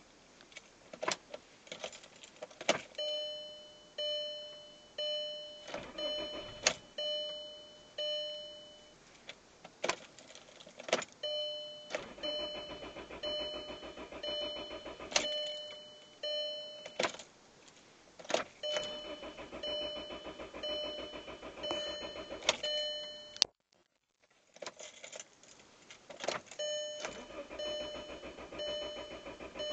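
The 2003 Volkswagen Jetta's 1.8 turbo four-cylinder is cranked over by the starter in several long tries, each several seconds long, without catching: a no-start. A warning chime dings about once a second throughout, and the ignition key clicks between tries.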